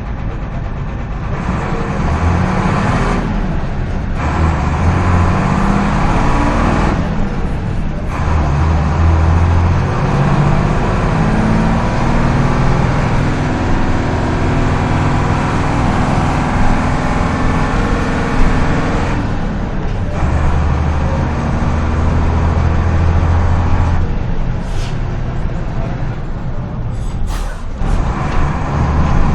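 Mercedes-Benz OF-1721 bus's front-mounted six-cylinder turbodiesel engine running under way, its note climbing and dropping back as it pulls through the gears. There are a few brief dips in the sound and two short sharp hisses or clicks near the end.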